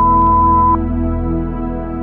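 Ambient new-age music of slow, sustained tones. A loud, pure, steady beep sounds over it and cuts off abruptly under a second in.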